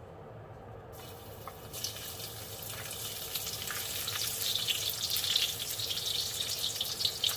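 Chopped garlic sizzling in hot olive oil: a hiss full of small crackles that starts about a second in and grows louder.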